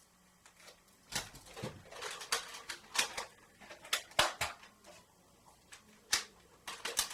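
Nerf blasters being primed and fired: a dozen or so sharp plastic clicks and knocks at an irregular pace, bunched together in the middle and again near the end, with a short lull between.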